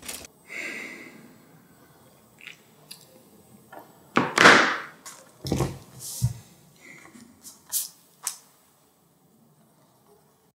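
Quiet handling sounds at a study desk: papers rustling, a pen and highlighters knocked and clicked, with a louder swish about four seconds in and two soft thumps just after.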